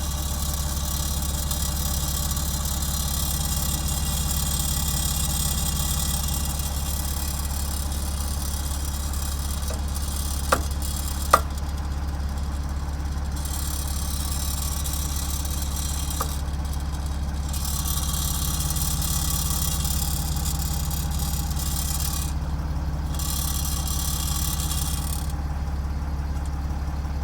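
A Mercedes-Benz S211 E-Class estate idling steadily, with a rattle from the loose chrome trim on the rear silencer's tailpipe. A couple of sharp clicks come about halfway through.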